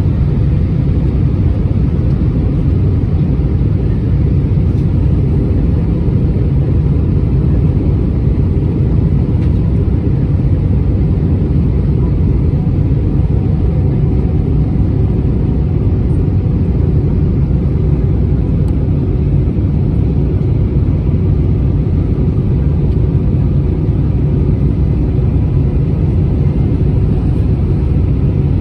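Steady cabin noise of an Airbus A320-231 airliner in flight: an even, low rumble of engines and airflow, unchanging throughout.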